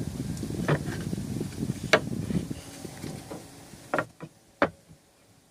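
Short 2x4 blocks being handled and set down on a wooden bench: several sharp wooden knocks, the last three close together about four seconds in.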